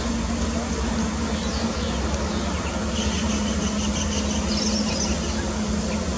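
Steady low engine drone with a constant hum, unbroken throughout. Faint high chirps come in about halfway through.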